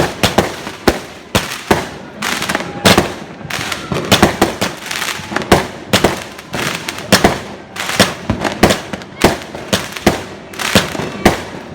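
Fireworks going off in a rapid, irregular string of sharp bangs, two to four a second, without a break.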